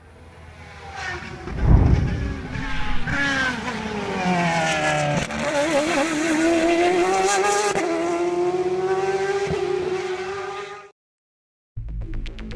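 Car engine sound effect revving, its pitch climbing slowly, after a heavy thump about two seconds in. It cuts off suddenly near the end, and electronic music with a steady beat starts shortly after.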